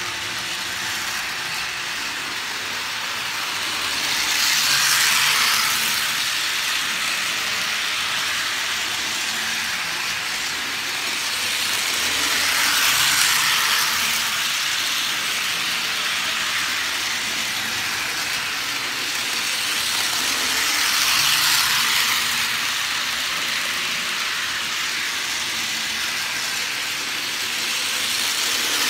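HO scale model train pulling a string of freight cars around a loop of track, a steady rattling whir of metal wheels on the rails and its small electric motor. The sound swells each time the train comes past close by, about every eight seconds.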